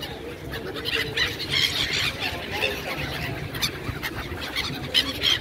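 A flock of gulls calling, many short, high squealing cries overlapping one another, thickening about a second in as the birds crowd in for food.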